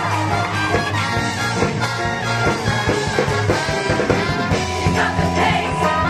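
A show choir singing over instrumental accompaniment with a steady beat.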